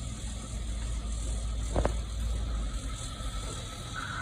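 Car engine running with a steady low rumble, with one sharp knock a little under two seconds in and a faint steady whine in the second half.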